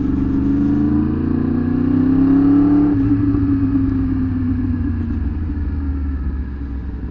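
Sportbike engine pulling with its pitch rising for about three seconds, then easing off and slowly falling in pitch as the bike slows.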